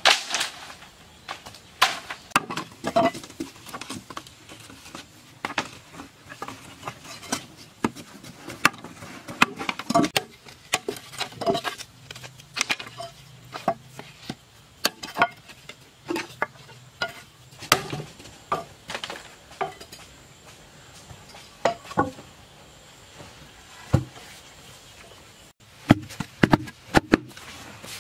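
Irregular knocks and scrapes of a hand tool working dry, loose earth, a stick jabbed into the soil and dirt pushed about, coming every second or so with some quicker clusters.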